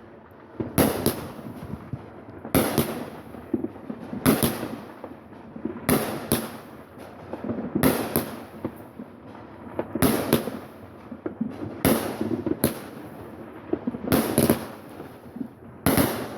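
Fireworks going off in a steady series, a loud bang about every two seconds, some in quick pairs, each trailing off into crackle and echo.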